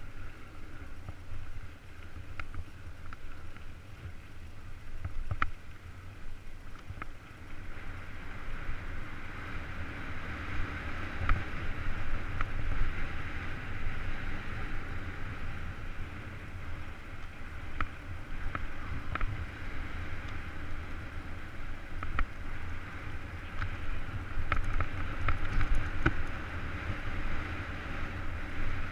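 Wind buffeting the microphone of a camera on a descending 29er mountain bike, over the hiss of tyres rolling on a dirt trail, with scattered clicks and rattles from the bike. It grows louder around a third of the way in and again near the end.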